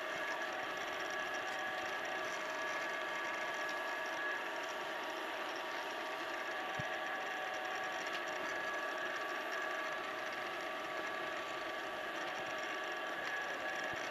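Wood lathe running steadily with a hum and a few held tones, spinning a pen blank while a micro mesh pad is held against it to smooth a superglue finish.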